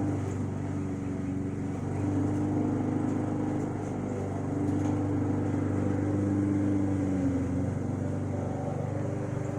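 Steady mechanical hum of an engine running, with a low drone and a higher tone that wavers slightly in pitch.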